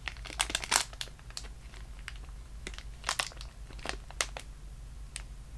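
Clear plastic packaging bag crinkling as a squishy is handled and squeezed inside it. Irregular sharp crackles, thickest about half a second in and again about three seconds in.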